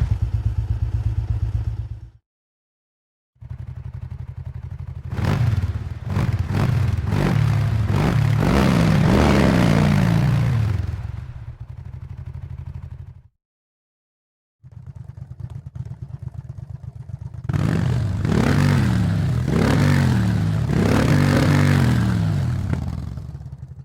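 Sound-designed motorcycle engine effects, not a recording of any one bike: a rev dying away about 2 s in, then after a short silence two separate takes, each starting at a steady idle and then revved several times, the pitch rising and falling with each blip of the throttle.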